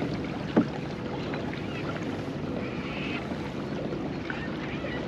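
Water lapping against a fishing kayak's hull, with wind on the microphone; one short knock about half a second in.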